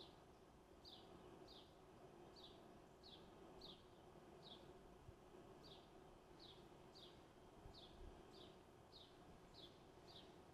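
Faint, short bird chirps falling in pitch, repeated steadily about one and a half times a second.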